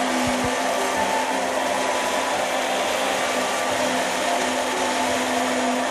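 Small electric food chopper running steadily with a constant motor hum, its blades whirring through a wet spice paste of red chilies, tomato, turmeric and a little coconut milk.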